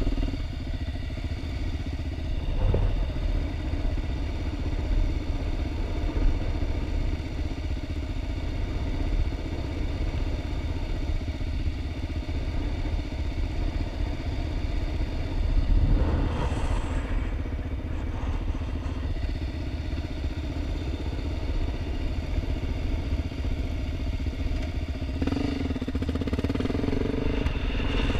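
Off-road motorcycle and sport quad engines idling steadily, the note swelling briefly a little past halfway and rising near the end as the revs come up.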